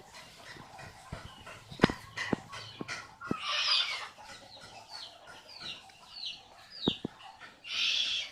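Pet owl calling: two harsh, hissing screeches, with a run of five or so short downward-sliding chirps between them. A few sharp knocks sound around the calls.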